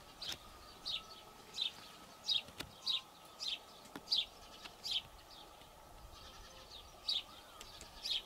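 A small bird calling a short, high, falling note over and over, about one and a half times a second, with a pause of about a second and a half past the middle before the calls resume.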